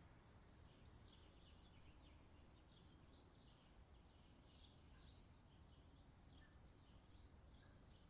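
Faint countryside ambience: small birds chirping in short, repeated high calls over a low steady rumble.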